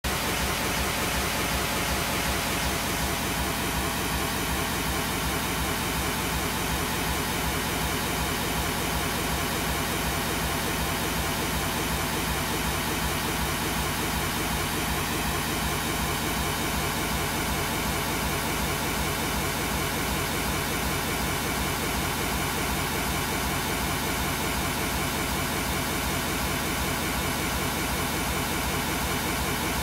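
CAPRICEP acoustic test signal played from a loudspeaker: a steady, dense hiss-like noise with a fast repeating pattern. It is the excitation for measuring the microphone's impulse and frequency response with a sound shield.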